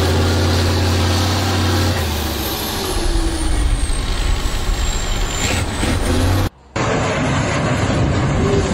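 Diesel engine of a six-wheeled trial truck working hard as it climbs a steep mud bank: a steady deep drone that turns rougher about two seconds in, with a high whine gliding down near the middle. Near the end the sound cuts off abruptly and gives way to a different, rougher rumble.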